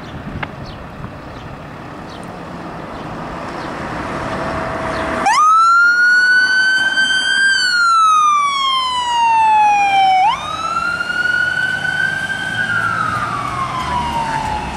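Fire department rescue ambulance pulling out under its own engine, then its siren switching on abruptly about five seconds in. The siren plays a slow wail: it rises, glides down over several seconds, jumps back up and glides down again.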